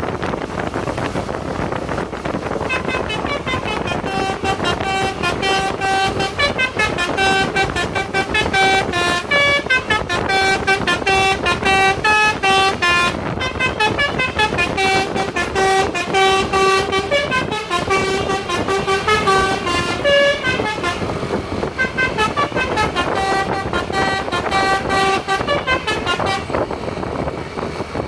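Basuri multi-tone bus air horn (telolet horn) playing a fast melody of short, rhythmic horn notes that change pitch as the tune goes on.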